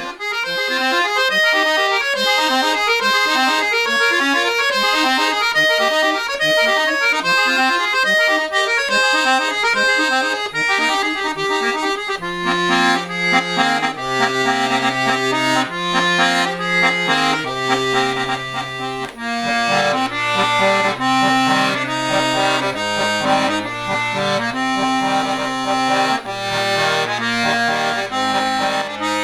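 Instrumental music with a quick, running melody; about twelve seconds in, lower held chords join beneath it.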